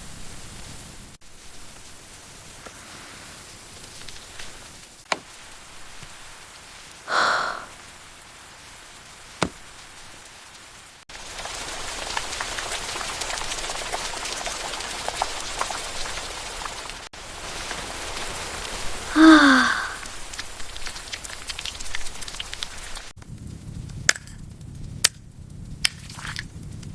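Steady rain hiss that shifts in level and tone several times. Twice, about 7 and 19 seconds in, a short pitched call falls in pitch. In the last few seconds, sharp taps or clicks.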